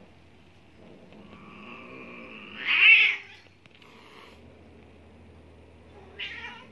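A cat caterwauling while two cats tussle as one tries to mount the other: one drawn-out yowl that swells to a loud, wavering peak about three seconds in, then a short cry near the end.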